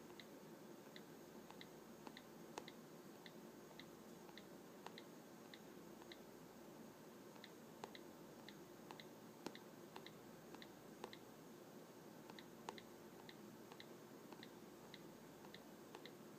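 Faint, evenly spaced clicks of an iPad's on-screen keyboard, about two a second, as 'y' and 'return' are tapped over and over, with a few slightly louder taps of a fingertip on the glass.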